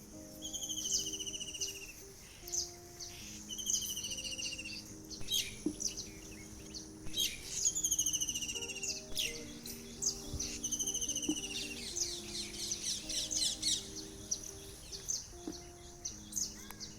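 Several birds chirping and calling, with a repeated trill about a second long that falls slightly in pitch and many short sharp chirps in between. Soft held low notes run steadily underneath.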